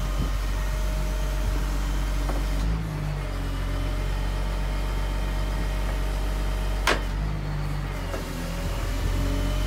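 Crane truck's CAT 7.2 L inline-six diesel running steadily under hydraulic load, its tone shifting twice as the Effer knuckle boom's grapple claw is closed and opened. A single sharp clank about seven seconds in.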